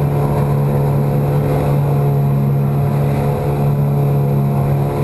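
Yamaha 9.9 hp two-stroke kicker outboard running steadily at wide open throttle, pushing a loaded 17-foot boat at about 5 mph.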